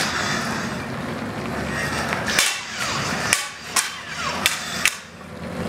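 LED lightsaber blades clashing during sparring: about five sharp clacks between two and five seconds in, over a steady background noise.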